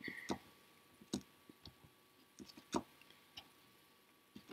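Faint, scattered clicks and ticks of hands tying and tightening small macramé knots in thin thread, with two sharper clicks, about a second in and near the three-second mark.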